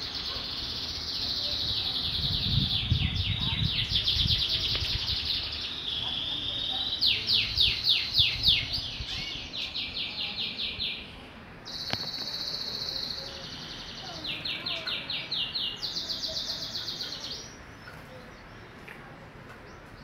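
Caged domestic canaries singing: a long, continuous song of rapid trills, each held for a second or two before switching to another, with a brief break partway through.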